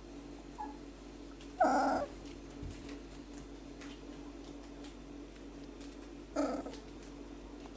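Four-week-old whippet puppy giving two short, high barks, about five seconds apart.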